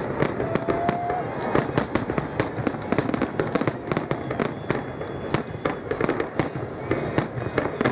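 Fireworks display: aerial shells bursting in a rapid, irregular string of sharp bangs, several a second, over a continuous wash of crackle and echo.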